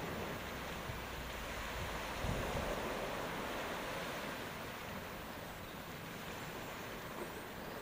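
Steady wash of sea surf on a rocky shore, mixed with wind, growing a little louder about two seconds in.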